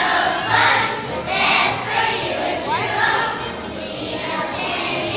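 Children's choir singing with musical accompaniment.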